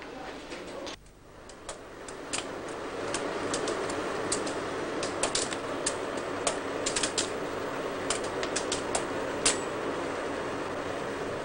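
Factory assembly-room din: a steady hum with irregular sharp clicks and clacks of parts and hand tools at the work benches. The loudest clack comes about nine and a half seconds in.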